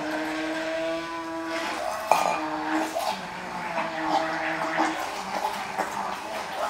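Immersion blender running in a glass jug of pastry cream as softened butter is emulsified into it; the motor's whine steps up and down in pitch a few times, with a knock of the blender head on the jug about two seconds in.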